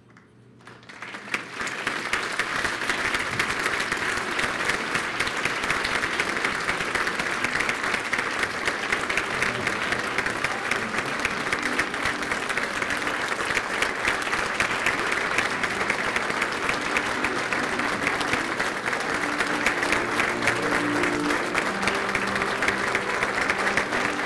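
Theatre audience applauding, starting about a second in and carrying on steadily, with music faintly underneath in the second half.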